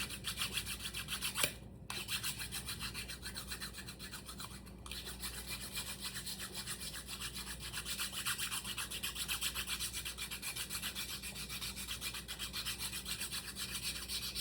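Quick, even back-and-forth rubbing strokes of sanding or rasping a biwa tuning peg to make it fit its hole, with brief pauses about 2 and 5 seconds in.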